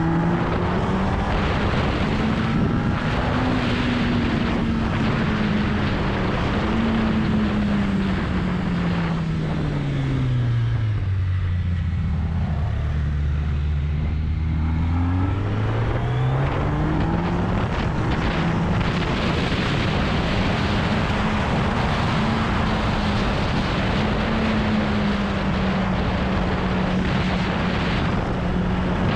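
Sport motorcycle engine under way with steady wind rush on the mounted camera's microphone. About a third of the way in, the engine pitch drops steadily as the bike slows for a tight hairpin. It stays low for a few seconds, then climbs back as the bike accelerates out and holds a steady pitch.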